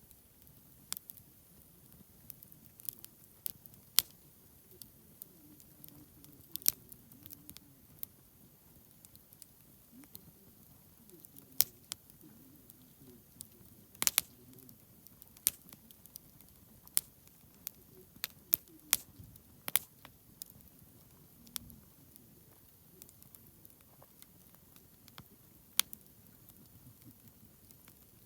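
Wood campfire crackling: irregular sharp pops and snaps, one or two a second and some much louder than the rest, over a low steady background.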